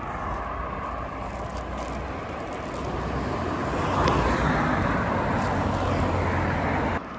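Road traffic noise, a steady rumble and hiss that grows louder about four seconds in and cuts off abruptly near the end.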